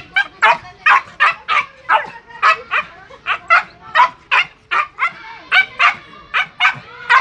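A dog barking over and over in a rapid string of short, high barks, about three a second.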